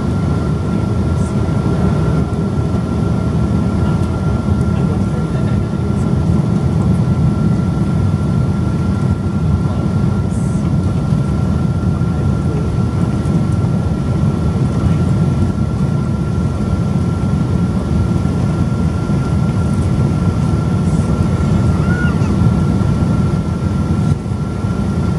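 Steady cabin noise inside a Boeing 777-200 descending to land: a low, even rumble of the engines and airflow, with a thin steady whine above it.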